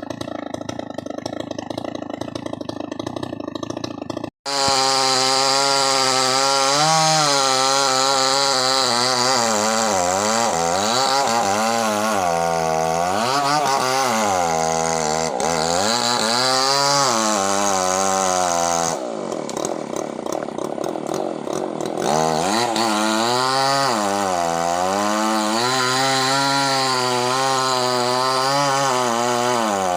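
Small two-stroke chainsaw cutting through a large log, the engine note dipping and rising over and over as the chain bites into the wood. A cut about four seconds in; for a few seconds past the middle it runs lighter and higher.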